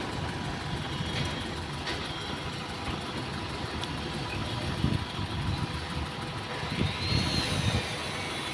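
Hydraulic boom truck's engine running at idle, with a few knocks and clanks. The engine swells louder briefly twice, and a faint high whine rises and falls near the end.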